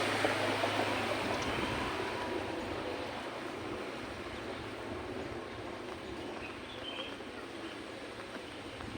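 Vehicle noise, a steady rushing that fades away over the first few seconds as if moving off, leaving a low even background.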